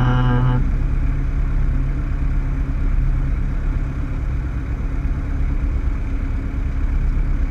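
Cessna 152's four-cylinder Lycoming engine running at low power with a steady rumble. A steady buzzing horn-like tone cuts off abruptly about half a second in.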